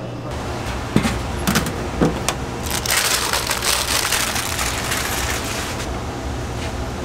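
Parchment paper rustling for about two seconds as it is lifted off a steel tray, over a steady low kitchen hum, with a few sharp clicks and knocks in the first two seconds.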